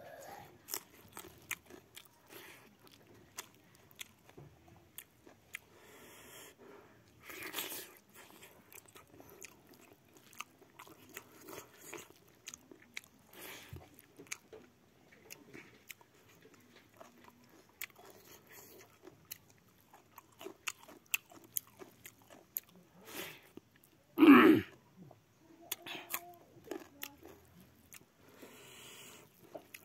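Close-up chewing and crunching of a mouthful of rice, pork and green chilli, with many short wet smacks and clicks. One louder, longer sound comes about three-quarters of the way through.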